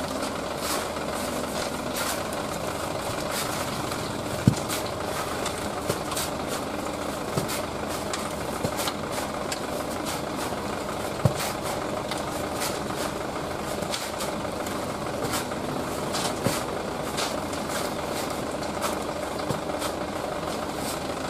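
Dump truck's diesel engine idling steadily, with the scrape and chop of shovels working into packed wet sand on its bed. Two sharper knocks stand out, one about four seconds in and one about eleven seconds in.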